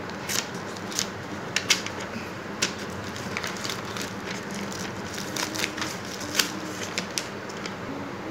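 Paper sleeve and foil wrapper of a Dairy Milk chocolate bar crinkling as they are unwrapped by hand: irregular sharp crackles over a steady background hiss.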